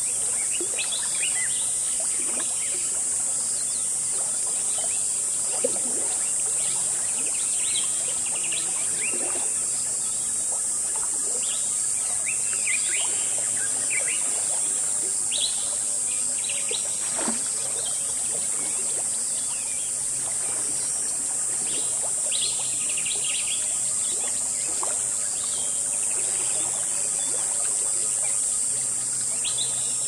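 Jungle river ambience: a steady high-pitched insect drone with birds chirping and calling at irregular intervals over water babbling in a stream.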